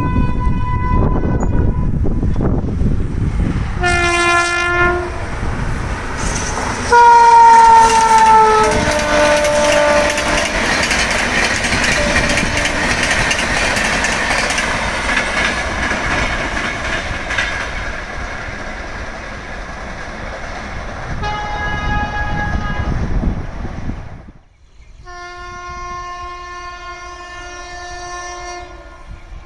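Indian Railways locomotive horns sounding several times as a train passes: a short honk, a loud blast whose pitch drops as the locomotive goes by, then the rumble and rattle of the coaches. After a sudden break near the end, another horn blows one long steady note.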